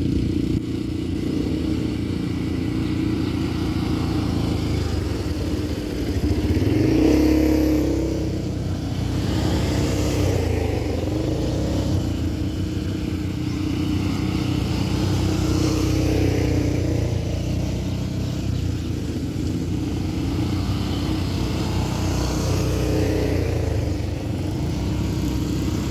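Small ATV (quad bike) engines running as several quads ride by on a dirt trail, one revving up about six seconds in, with the engine sound rising and falling as each passes.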